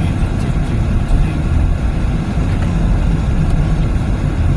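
Steady road noise heard inside a moving car's cabin: a low rumble of tyres and engine while driving on a snowy road.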